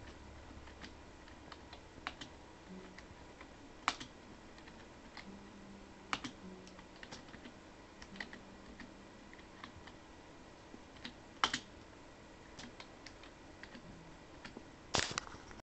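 Faint, irregular clicks and taps, a second or more apart, over a low steady hum; a few are sharper, the loudest near the end.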